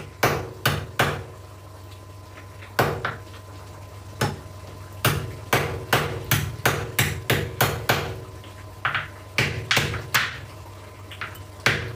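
Repeated hard knocks of kitchen work: a run of sharp strikes, a few scattered ones at first, then a quick series of about three a second through the middle, broken by short pauses.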